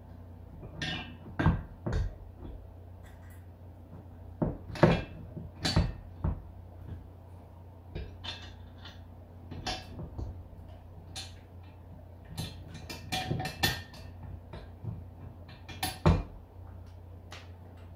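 Irregular metal clinks and knocks as a caster wheel's bolt, washers and sleeve are fitted to the steel leg of a Pittsburgh 1000 lb engine stand and snugged up by hand, the loudest knocks about a second and a half in, around five seconds in, and near the end.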